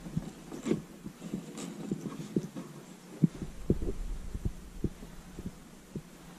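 Irregular dull, low knocks and thumps, a few a second, dying away shortly before the end.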